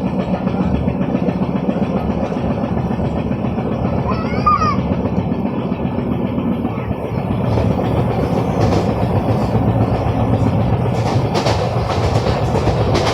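An LHB passenger coach running along the track, heard from on board: a steady rumble of wheels on rails that grows louder with faint clicks about halfway through. A brief high wavering sound comes about four seconds in.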